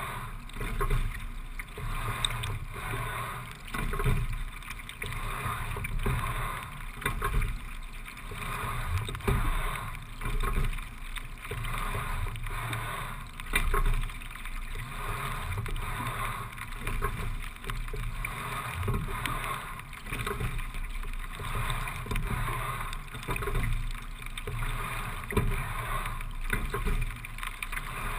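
Single racing shell being sculled at a steady low rate of about 17-18 strokes a minute: water running along the hull, with a swell of sound at each stroke about every three seconds.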